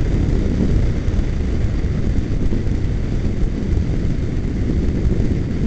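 Loud, steady wind rumble on a motorcycle's microphone at freeway speed in a strong crosswind.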